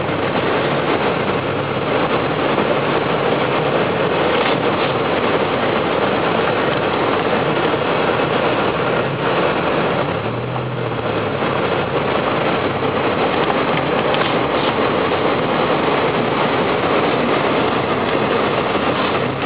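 A truck driving along a snow-covered road: a steady engine hum under a dense, even noise of tyres running through snow.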